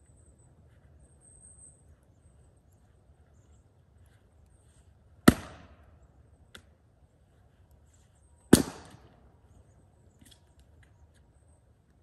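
Splitting axe striking firewood twice, about three seconds apart, each blow a sharp crack with a short ringing tail. A lighter knock falls between the two blows.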